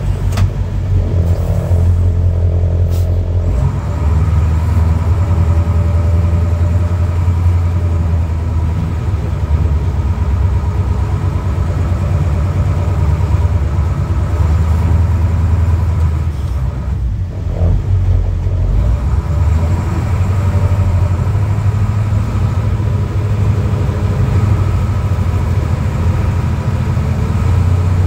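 1987 Ford C8000 fire engine's CAT 3208 turbodiesel running as the truck drives, heard from inside the cab as a deep, steady rumble. The sound changes about three and a half seconds in and eases briefly about seventeen seconds in.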